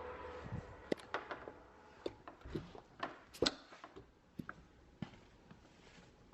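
A quick, irregular series of crisp snow crunches, thinning out toward the end.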